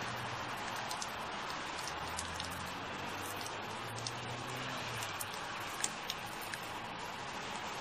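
Steady rain falling, with scattered single drops landing close by.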